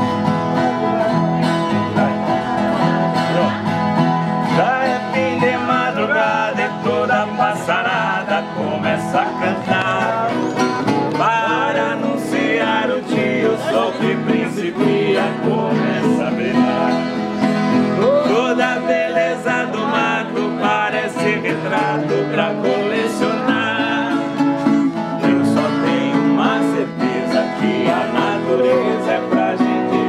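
Violas caipiras strummed and plucked together, playing a música caipira tune.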